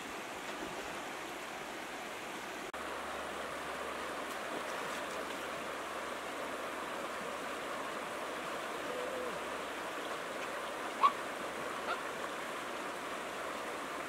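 Steady rush of a fast-flowing, flooded river, with two brief sharp sounds near the end, the first the louder.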